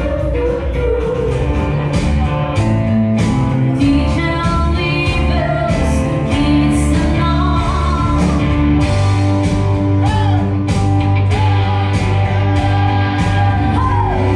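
A live band playing a song: a singer over a drum kit, bass and electric guitar.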